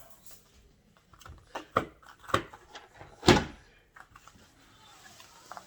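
Cardboard shipping boxes being handled and set down: several knocks and thuds, with one loud thump a little past three seconds in.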